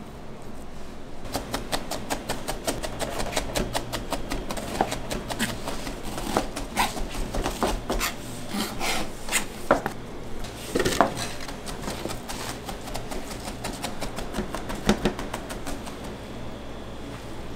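Hand food prep in a commercial kitchen: rapid, irregular knocks and scraping of utensils, starting about a second in, over a steady low hum.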